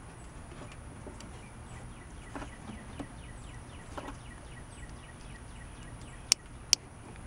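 Quiet handling of a plastic automotive wiring connector as wires are fed through its back cage, with faint ticks. Near the end come two sharp clicks in quick succession as the plastic wire cage snaps onto the back of the connector.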